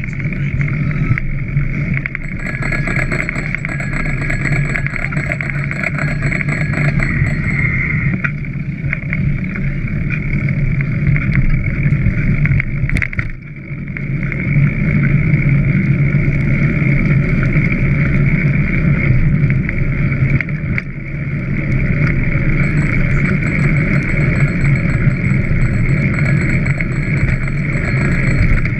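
Steady rushing noise of a bicycle being ridden along wet roads: tyre hiss on the wet surface and wind on the microphone. A faint high whine comes and goes twice, and the noise briefly drops about halfway through.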